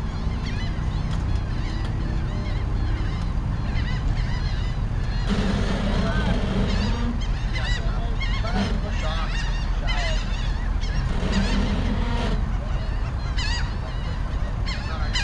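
Geese honking repeatedly, a flurry of short calls that grows busier about five seconds in, over a steady low rumble.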